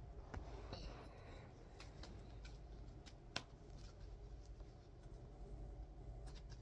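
A deck of tarot cards being shuffled by hand: faint, soft card-on-card clicks, with one sharper tap about three and a half seconds in.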